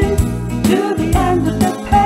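Children's song playing: sung vocals over a backing track with a steady beat of about two strokes a second.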